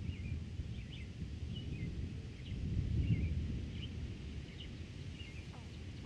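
Wind rumbling across the microphones in open country, swelling about halfway through, while a bird keeps up short high chirps about two a second.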